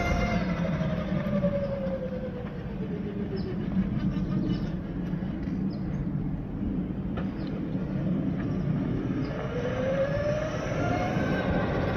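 Whine of a quad ATV's electric conversion motor driving away and back: the pitch falls over the first few seconds as it pulls away up the road, and rises again near the end as it comes back, over a steady low hum.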